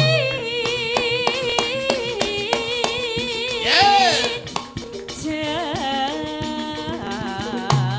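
Live Javanese stage music: women singing with vibrato into microphones over kendhang hand drums beating steadily. About four seconds in, a loud swooping sound rises and falls over the music.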